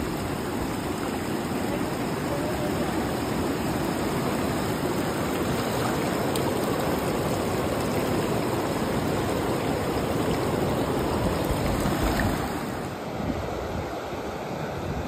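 The Seti River's water rushing, a steady, even sound that grows a little duller near the end.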